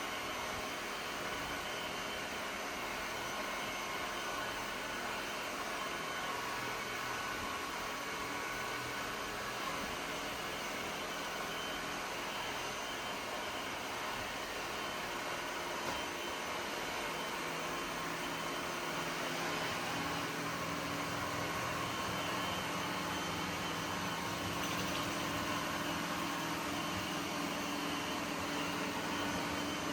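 ECOVACS DEEBOT N8 PRO+ robot vacuum running: a steady whir of its suction fan and brushes, with a low hum getting a little stronger about two-thirds of the way through.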